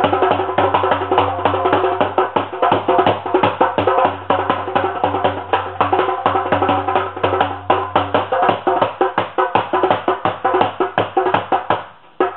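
Background music with a fast, busy wood-block-like percussion rhythm over steady sustained notes and a low bass drone, dropping out briefly near the end.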